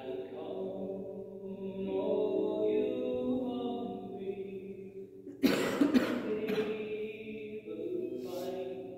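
Slow, chant-like singing in long held notes. About halfway through, a loud cough breaks in over it for about a second.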